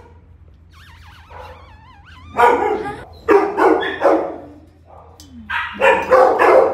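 Shelter dogs barking in two runs of several barks each, one starting about two and a half seconds in and one near the end, with a high wavering whine about a second in.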